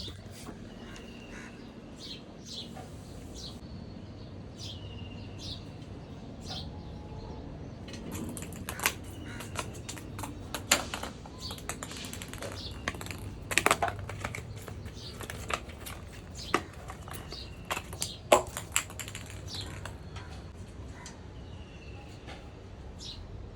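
Short bird chirps, with a run of sharp irregular clicks and taps through the middle.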